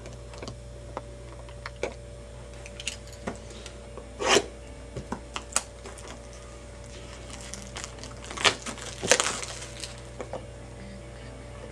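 Handling and opening a trading-card box and its pack: scattered light clicks and taps of cardboard and packaging, with short rustling bursts of the wrapper about four seconds in and again near nine seconds.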